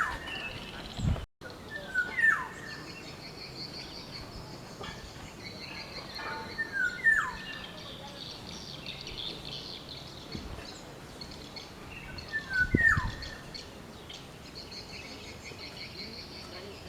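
Black-naped oriole calling: a short whistled phrase of a couple of brief notes and a downward-sliding whistle, repeated about four times several seconds apart.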